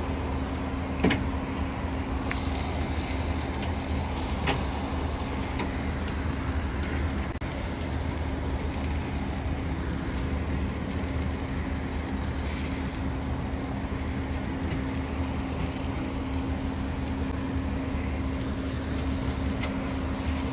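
A steady mechanical hum with a low drone runs throughout. Over it, metal tongs click sharply against a charcoal grill's grate about a second in and again a few seconds later as chicken is turned.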